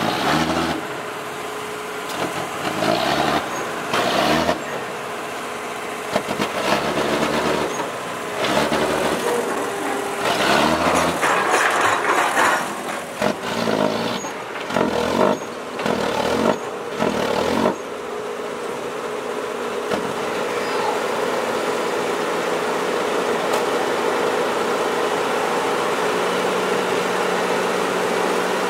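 Six-wheel dump truck's diesel engine revved hard in repeated bursts as its rear wheels spin and slip in deep mud. From about eighteen seconds in it settles to a steady run that slowly gets louder, while the dump bed is raised.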